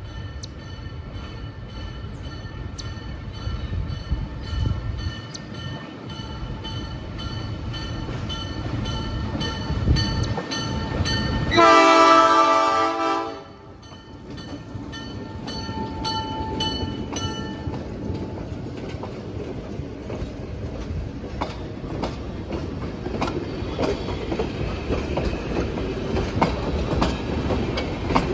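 Diesel locomotive 958 approaching and blowing its horn once, for about two seconds about twelve seconds in, the loudest sound. It then passes close by with its engine rumbling, followed by passenger cars whose wheels click over the rail joints.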